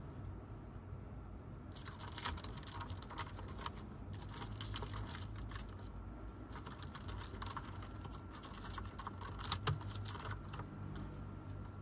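Rapid, irregular clicking and scratching of beetles' claws and hard shells on cork bark as a Japanese rhinoceros beetle and a Forster's stag beetle grapple. It starts about two seconds in, eases briefly midway and stops about a second before the end.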